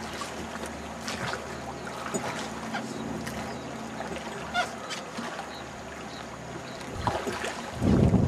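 Open-air river boat ambience with small knocks and clicks, a brief honking bird call about halfway through, then wind buffeting the microphone with a loud low rumble near the end.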